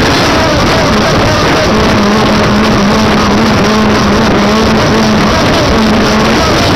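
Wind rushing over a kite-borne camera's microphone, loud and steady. A wavering hum comes in about two seconds in and drops out near the end.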